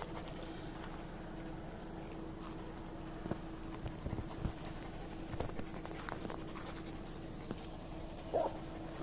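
A galga (Spanish greyhound) gives a short whine near the end, over a quiet background of scattered light taps and a faint steady hum.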